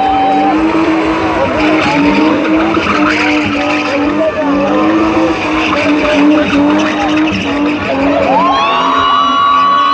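Car engine held at high revs while the rear tyres spin and skid through continuous donuts, with the engine note dipping briefly now and then. Near the end a higher note rises and then holds.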